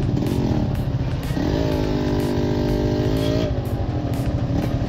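Motorcycle engines running on a dirt trail. About a second and a half in, one engine revs up, holds a higher steady pitch for about two seconds, then drops back.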